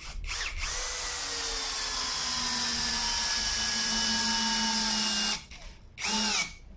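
SfunPro 16V cordless drill driving a long screw into a wooden log. A couple of short trigger blips are followed by about five seconds of steady motor whine that sinks slowly in pitch as the screw bites deeper. One more short burst comes near the end.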